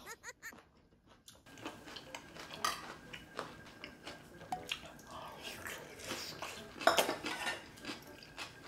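Chopsticks clicking and tapping against bowls and dishes while eating: a series of light clinks, the loudest about seven seconds in.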